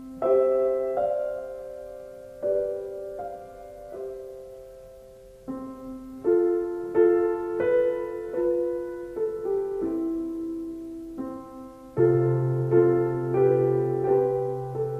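Slow, gentle film-score piano music: single notes and chords struck one after another, each fading away, with a deeper held bass note joining about twelve seconds in.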